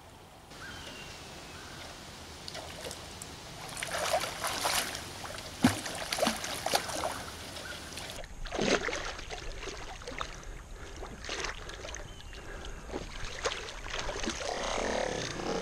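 Repeated splashing in shallow river water as a hooked steelhead thrashes at the surface beside a wading angler and dog, over a steady background of flowing water.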